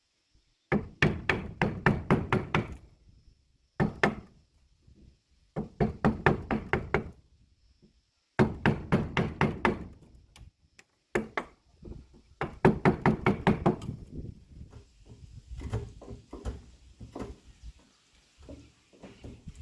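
Hammering on wood: quick runs of sharp strikes, about five or six a second, each run lasting a second or two with short pauses between. The strikes turn softer and more scattered near the end.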